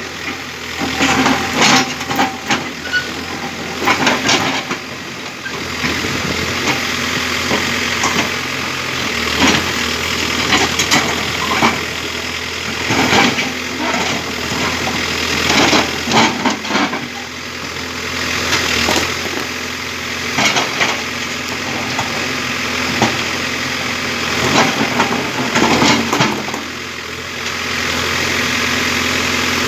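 Case 851EX backhoe loader's diesel engine running under work, its pitch shifting every few seconds. Many short sharp clanks and knocks come through it.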